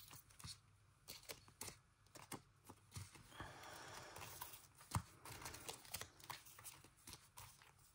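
Small square paper picture pieces being shuffled and handled: faint rustling with light taps and clicks, the sharpest tap about five seconds in.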